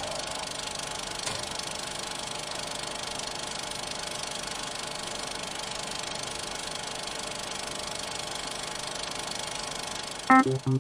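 A steady, even machine-like running noise with a hiss reaching high up; music comes in near the end.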